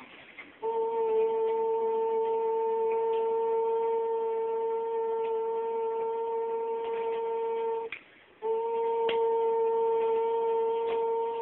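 A shofar sounding two long, steady blasts on one unwavering pitch, broken once by a short pause for breath about eight seconds in.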